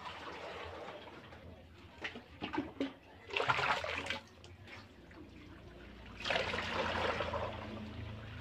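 Soy milk and curds being poured and ladled during tofu making, splashing into a stone vat and into a cloth-lined mould. Two main bursts of pouring, about three seconds in and again about six seconds in.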